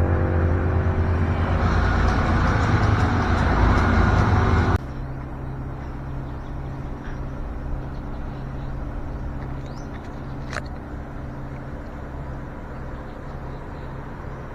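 Vehicle engine running with road noise, loud and building for the first few seconds, then after an abrupt cut a quieter, steady engine hum.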